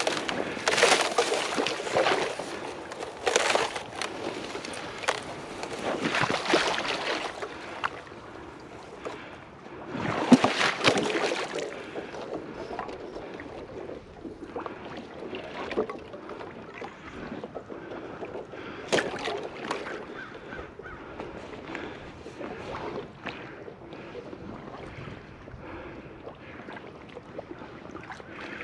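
Water sloshing and splashing in uneven strokes, heavier through the first dozen seconds with a loud splash about ten seconds in, then lighter.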